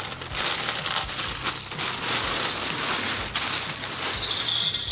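Cap'n Crunch Halloween Crunch cereal pouring out of its plastic liner bag into a stainless steel bowl: a dense, rain-like patter of hard little pieces, with the plastic bag crinkling.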